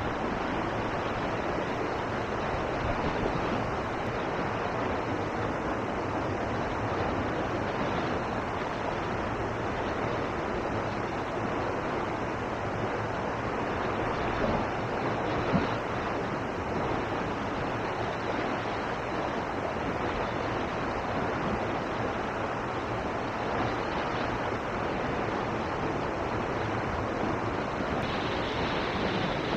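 Steady rush of river water pouring over a weir into the pool below, an even noise without let-up.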